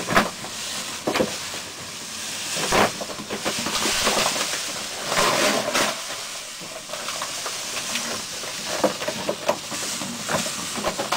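Play sand pouring from a large bag into a glass tank: a steady hiss of falling grains, with a few short knocks and rustles along the way.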